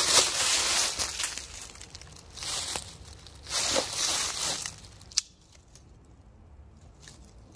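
Footsteps crunching through dry fallen oak leaves in a few short bursts, then quieter, with one sharp click about five seconds in.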